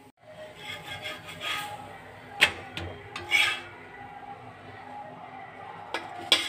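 Metal spatula scraping under a chapati on a flat griddle, with sharp clicks of metal on metal about two and a half and three and a half seconds in. Near the end there are two quick clinks as the chapati is set down on a steel plate.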